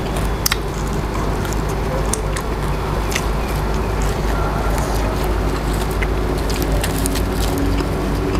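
Scattered crisp crackles and rustles of a bunch of fresh coriander being picked up and handled, over a steady low background rumble.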